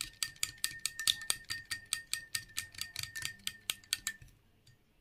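Eggs being beaten with a whisk in a ceramic bowl: quick, even taps of the whisk against the bowl, about six a second, over a steady high ring from the bowl. The beating stops near the end.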